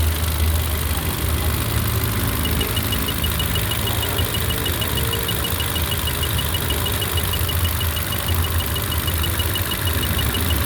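Honda City engine idling steadily with a misfire. A rapid, even, high-pitched ticking runs through most of it, starting a couple of seconds in.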